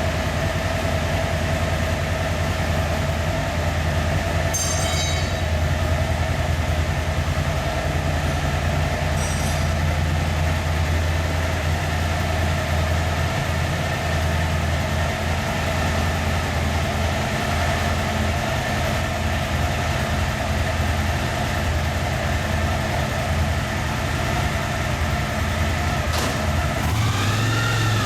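Suzuki V-Strom DL 1000's V-twin engine running steadily with its rear wheel turning on a roller speed-test bench: a steady low drone with a steady whine above it. Near the end the pitch sweeps up and down.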